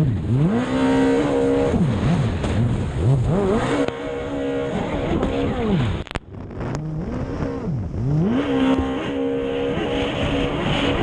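Racing jet ski engine revving hard, its pitch climbing and falling again every second or two as the throttle is worked through the turns, over the hiss of water spray. About six seconds in the sound drops out briefly with a couple of clicks, then the engine climbs again.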